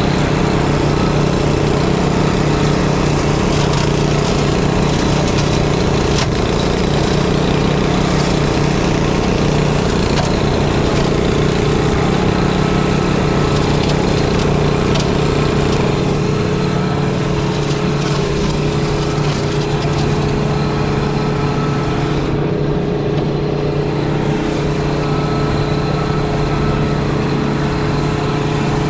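Engines of a mini skid steer and of a Swisher 44-inch rough-cut mower's Briggs & Stratton motor running together at a steady drone while the mower cuts through tall dry grass and brush.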